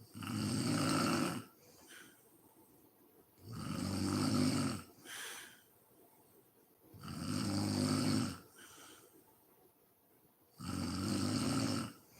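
A woman snoring in deep sleep: four long, rough snores, one about every three and a half seconds, with a brief fainter sound after three of them.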